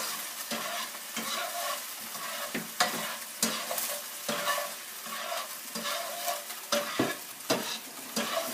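A utensil stirring and scraping garlic and oyster sauce in a hot pan, with irregular scrapes about once or twice a second over a steady sizzle.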